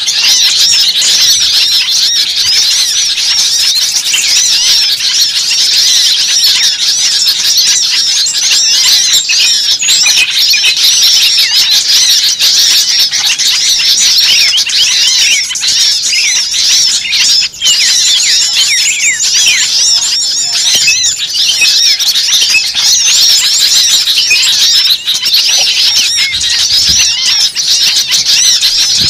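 A dense, continuous chorus of many small birds chirping and squeaking at once, the calls overlapping without a break.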